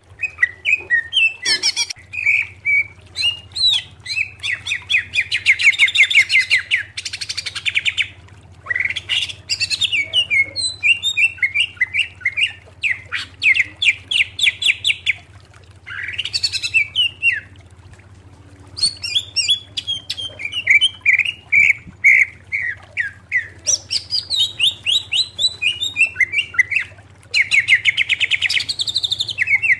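Greater green leafbird (cucak ijo) singing: loud, varied phrases of rapid chirps and fast trills, broken by a few short pauses.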